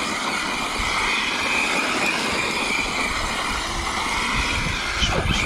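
Arrma Mojave 8S RC truck's brushless motor and drivetrain running at speed, a steady high-pitched whine that wavers slightly. About five seconds in, the whine drops quickly in pitch with a short clatter.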